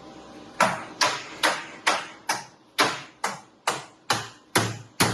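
A steady run of sharp knocks, about two a second, each ringing briefly as it fades, starting just over half a second in.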